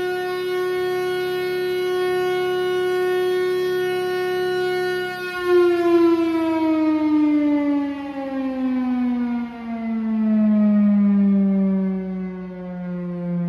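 Chrysler air raid siren, the V8-driven Chrysler Bell Victory siren, sounding one steady tone with many overtones; about five seconds in, its pitch starts a slow fall.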